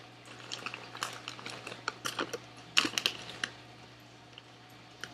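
Lay's potato chip bag crinkling as it is handled, a quick run of crackles and clicks that is loudest two to three seconds in and thins out after that.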